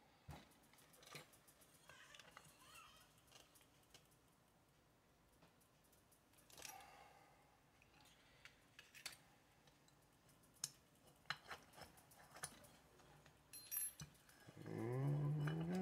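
Faint, scattered metallic clicks and clinks of a hand tool and small parts while the connecting rod cap screws are worked down on a chainsaw crankshaft. A short, louder, low voice-like sound comes near the end.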